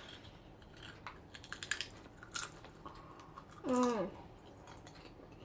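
Someone chewing a crunchy potato snack: a quick run of crisp crunches in the first couple of seconds and another a little later, with a short vocal sound about two-thirds of the way through.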